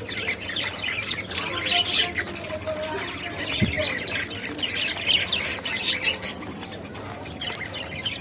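Budgerigars chirping and chattering in a rapid run of short, high calls and squawks.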